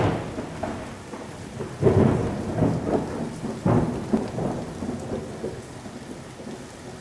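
Thunderstorm sound effect: steady rain with several rolls of thunder, the loudest at the start and about two and four seconds in, dying down toward the end.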